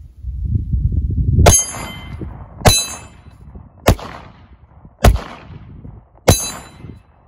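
Five 9mm shots from a SIG P320 pistol, about one every 1.2 seconds. The first, second and last are each followed by a high ringing clang from the steel plate behind the paper target, a hit in the A or C zone; the third and fourth ring no steel, having missed those zones.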